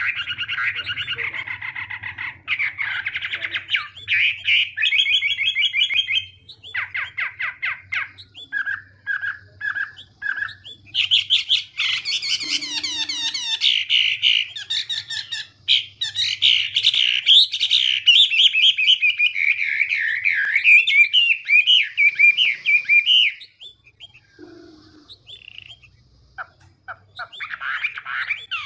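Chinese hwamei (họa mi) singing a varied song of rich, fast whistled phrases, with a run of four short repeated notes about nine seconds in and a pause of a few seconds near the end before it starts again.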